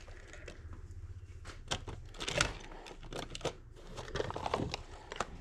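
Handling noise of die-cast toy fire trucks: scattered light clicks and rustles as the models are held, turned and moved about in a cardboard box, over a low steady hum.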